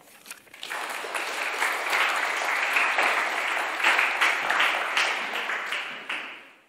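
Applause from a small seated audience, many separate claps, starting about a second in and fading out near the end.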